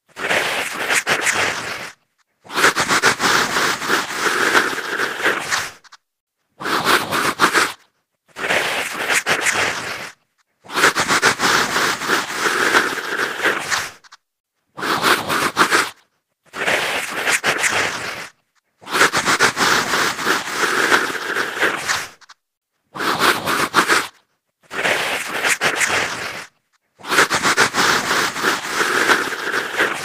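Aggressive female zombie growls and snarls, harsh and unpitched, coming in bursts of one to four seconds with short silences between them; the same sequence of bursts repeats about every eight seconds.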